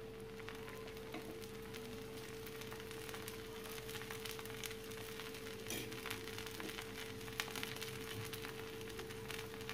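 Rava roast batter frying on a hot dosa tawa with oil just added, a faint, even sizzle of fine crackles as the edges crisp, over a steady hum.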